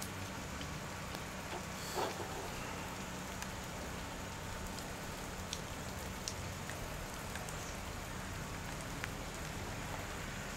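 Steady rain falling, an even hiss with scattered faint ticks of drops, and a brief soft knock about two seconds in.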